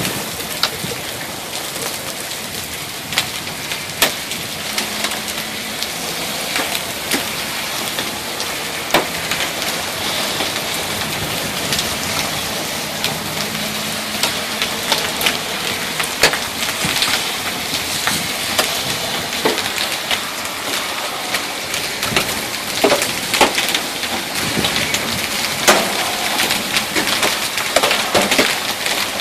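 Heavy rain and hail pouring down, a steady dense hiss broken by many irregular sharp knocks of hailstones striking hard surfaces, more frequent in the later part.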